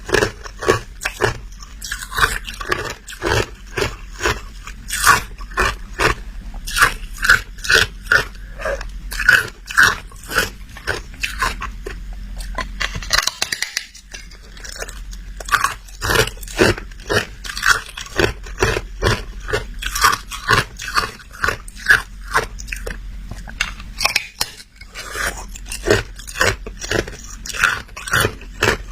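Hard ice being bitten and chewed close to the microphone: a continuous run of sharp, crisp crunches, roughly two a second, with brief pauses about halfway through and again later on.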